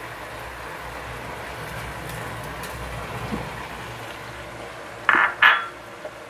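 Mustard-paste masala sizzling steadily as it fries in a non-stick kadai over a gas flame. About five seconds in, two short, loud scrapes.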